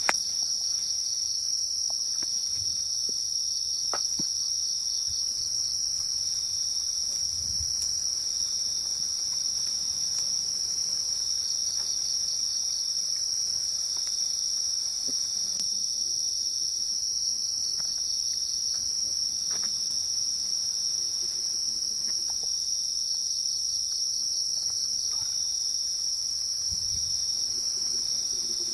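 Steady chorus of forest insects, a continuous high-pitched trill with a faint pulsing under it, and a few soft clicks now and then.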